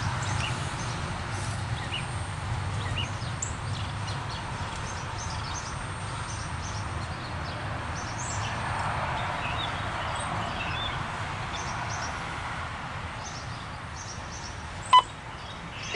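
Loaded autorack freight cars rolling on the rails, a steady low rumble that slowly fades as the end of the train pulls away. Birds chirp over it, and a single sharp click comes about a second before the end.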